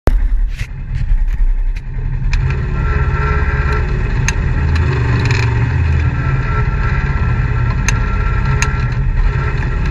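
Off-road vehicle engine running at low speed while crawling over a rough dirt trail, a steady low rumble with a faint whine, broken by occasional sharp clicks and knocks.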